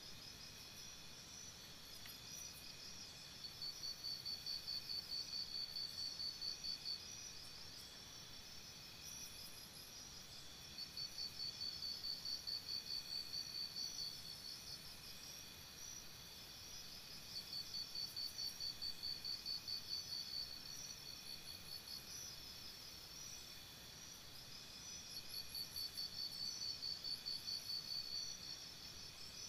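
Crickets chirping: spells of rapid high chirps lasting about three seconds, coming back every six to seven seconds, over a steady fainter insect hum.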